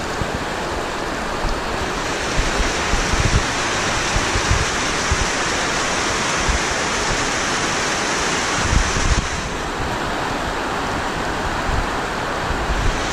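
Steady rush of falling water, with low gusts of wind buffeting the microphone.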